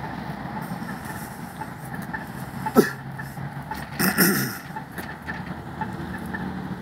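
Road traffic with a steady engine hum. Two brief louder sounds stand out, one sharp sound near the middle and a short louder burst about a second later.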